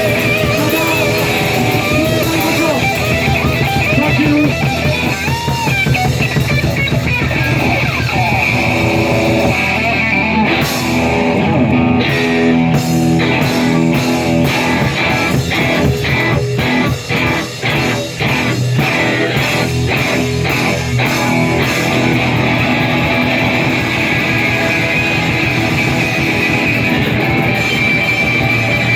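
Live rock band playing an instrumental passage with no vocals: electric guitar over bass and drum kit, with wavering held notes early on and a run of sharp, evenly spaced band hits through the middle.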